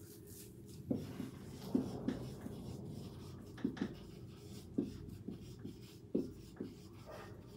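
Marker pen writing on a whiteboard: a string of short, separate strokes as a word is written out.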